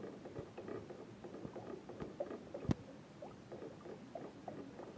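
Barbecue sauce bubbling on the heat in an aluminium pot: a steady run of small pops and blips, with one sharp click a little past halfway.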